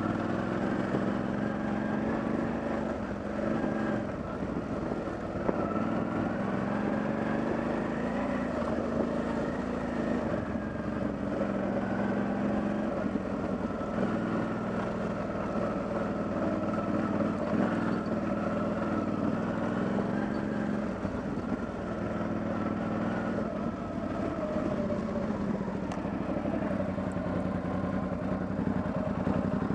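Motorcycle engine running steadily at low speed on rough ground, its pitch rising and falling gently with the throttle.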